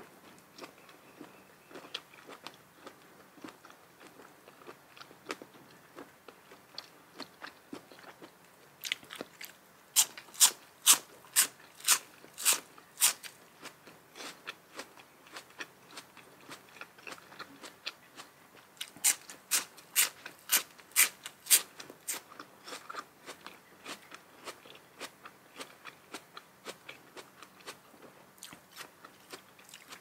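Close-miked chewing of crunchy food, mostly soft chewing with two runs of loud, crisp crunches at about two a second, about a third of the way in and again past the middle.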